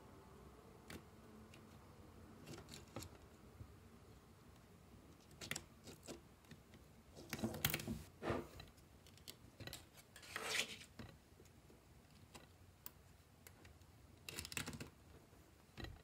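Small magnetic balls clicking and rattling as they are handled and snapped together, in scattered short clicks and brief clusters, with the busiest stretch around the middle.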